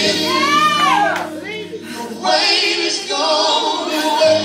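Gospel music: a lead singer's gliding vocal runs over a choir, with steady low notes held beneath.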